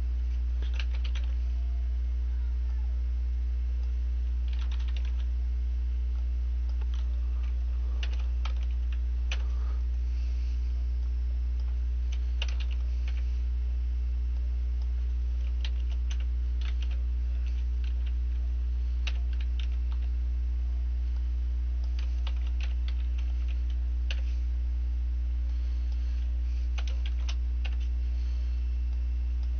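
Computer keyboard typing: scattered runs of short key clicks with pauses between them. A steady low electrical hum runs underneath and is the loudest sound.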